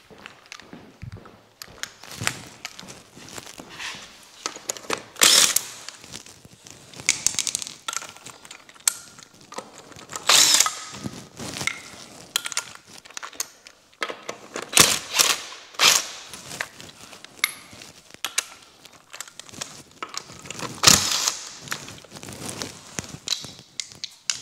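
Cordless impact driver run in several short bursts on a UTV wheel's lug nuts as the wheel is taken off. Between bursts there are quieter knocks, clicks and rustles of handling.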